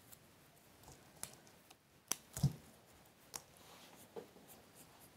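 Faint, scattered clicks and rustles of conifer foliage being stripped by hand and pushed into floral foam, with a soft thump about two and a half seconds in.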